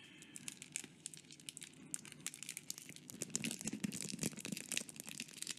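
Clear plastic pen sleeve crinkling as it is handled around the fountain pen: a faint, irregular crackle of many small clicks, busiest in the second half.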